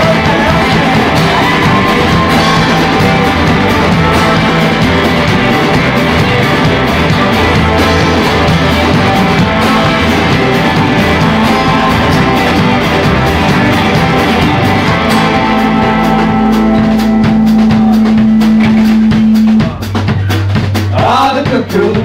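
Live band playing an instrumental passage with a drum kit. In the last several seconds the playing thins out to long held low notes under separate drum hits.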